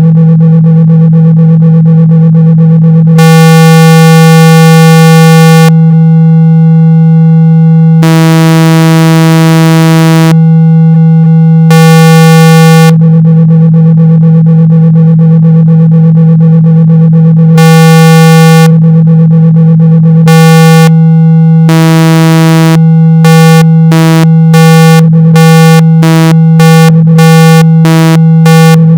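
Speaker-cleaning tone: a loud, steady low 162 Hz hum played to vibrate water and dust out of a speaker. Brighter buzzing tones switch on and off over it, in short rapid pulses near the end.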